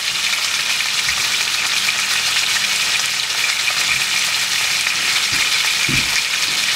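Venison tip roast searing in hot vegetable oil in a skillet: a steady sizzle as the meat browns, with a few soft low thuds underneath.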